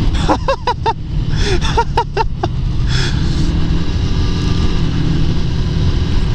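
Yamaha SRV250's air-cooled V-twin running steadily as the motorcycle cruises at speed, with wind noise rushing over the rider's camera microphone. The sound is steady and evens out from about three seconds in.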